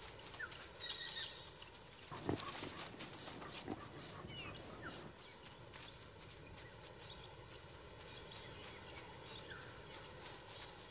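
Faint movement of African wild dogs running through grass and brush: a few soft footfall knocks in the first few seconds, with scattered short high chirps.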